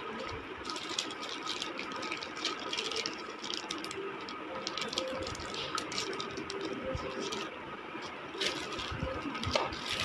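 Thin clear plastic bag crinkling and rustling as a mobile phone is worked out of it, in a dense run of small crackles. A slightly sharper tap comes near the end as the phone is set down on paper.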